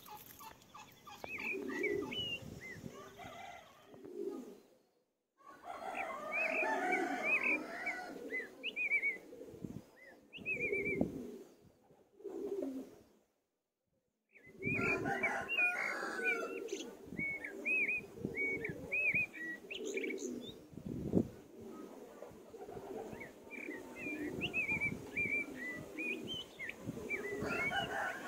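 A mixed flock of young chicken chicks and ducklings peeping, many short high cheeps overlapping, over lower repeated calls of older birds. The sound drops out to silence twice, about five seconds in and again for about a second around thirteen seconds in.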